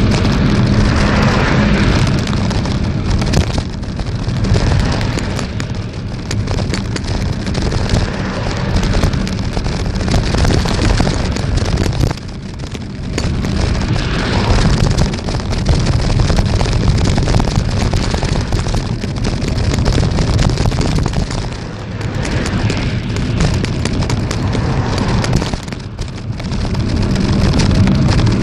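Wind buffeting the microphone along with road noise while riding a bicycle: a loud, continuous rumble that dips briefly twice.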